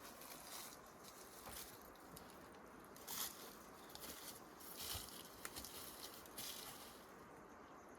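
Faint, intermittent rustling, a handful of short soft bursts over a quiet outdoor background.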